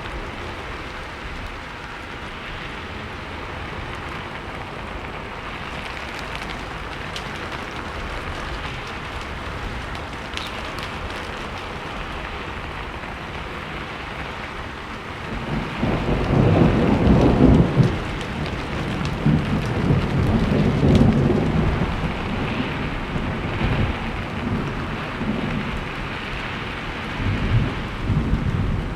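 Steady rain falling, a constant hiss, joined about halfway through by a long low rumble of thunder that swells loudest a couple of seconds after it starts and keeps rolling to the end.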